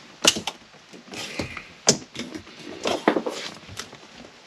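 Plastic lower dash trim panel being pushed and fitted into place: a series of sharp plastic clicks and knocks, with softer rubbing and rustling between them.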